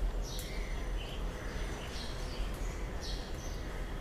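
Onion-and-spice gravy frying in oil in a pan with a low, steady sizzle, the oil separating at the surface as the masala nears done. Small birds chirp several times in the background.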